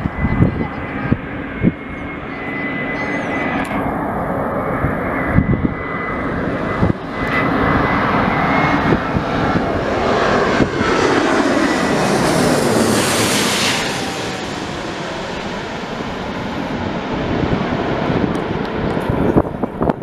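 Airbus A350-941 with two Rolls-Royce Trent XWB turbofans on landing approach, passing low overhead. The engine noise builds to its loudest about twelve seconds in, drops in pitch as the jet goes by, then fades as it moves away.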